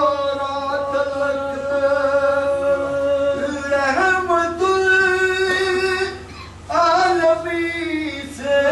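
A man's solo voice chanting a salaam, a devotional Urdu poem, in long drawn-out held notes. The pitch steps at about four seconds, and there is a brief breath about six seconds in. A steady low hum runs beneath.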